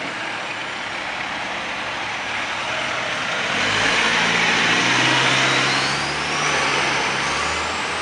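Tractor-trailer concrete mixer truck driving past: diesel engine running with road noise, growing louder to a peak about halfway through as it passes. A thin whine rises in pitch over the last few seconds.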